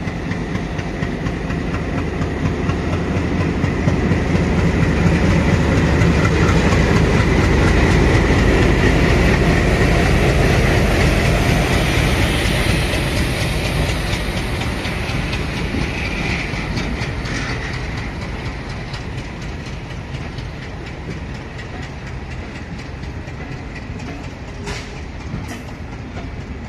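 WDG3A ALCO diesel locomotive's 16-cylinder engine running under power as it departs and passes, growing louder to a peak about a third of the way in. Then the steady clickety-clack of the milk tank wagons' wheels over the rail joints, slowly fading.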